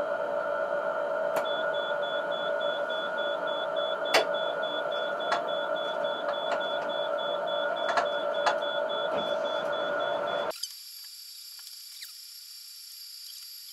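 Steady electrical whine in the cab of a Tatra T6 tram standing with a loss-of-line-voltage fault, with a few sharp clicks and a faint fast ticking. About ten seconds in the whine cuts off suddenly, leaving a fainter high-pitched tone.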